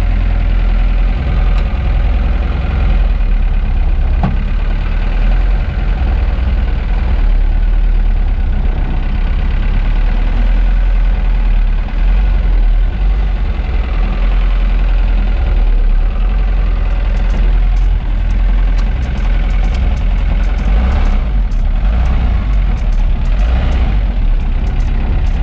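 Car engine running steadily at low revs, with a few light clicks in the last few seconds.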